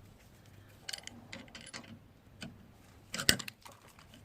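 Scattered light clicks and taps of tools and fittings being handled during plumbing work, with a sharper, louder clatter about three seconds in.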